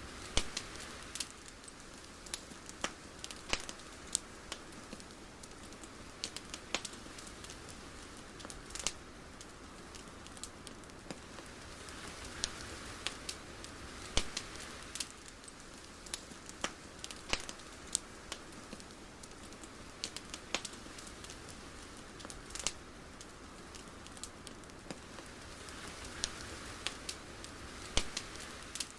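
Soft, steady hiss with irregular sharp crackles scattered through it, like a crackling ambience track.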